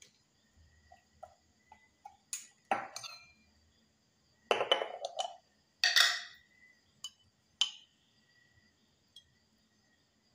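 Tableware clinks and taps: a metal spoon knocking on a glass chili garlic jar, a glass bowl and a balut's eggshell. There are a handful of sharp strikes, the loudest clustered in the middle.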